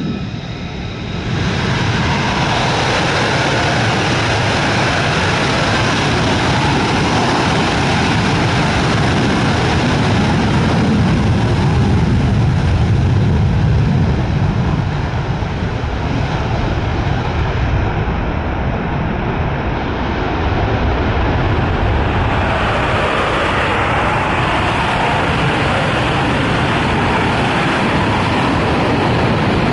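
F-35A fighter's afterburning turbofan on a full-power takeoff. A steady whine gives way about a second and a half in to a loud, continuous jet roar that carries on as the jet climbs away. The high hiss thins briefly a little past halfway, then comes back.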